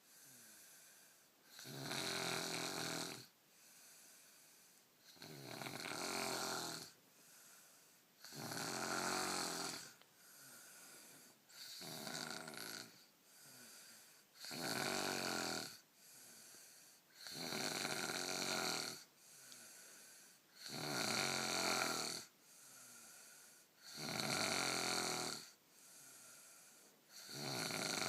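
A person snoring: a loud snore about every three seconds, about nine in all, with a softer breath between each.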